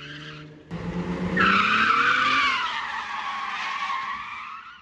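Infiniti G35 coupe's rear tyres squealing on asphalt while the car spins in donuts, with its V6 engine running hard underneath. The squeal jumps loud about a second and a half in, slides down in pitch, and fades out near the end as the car slows.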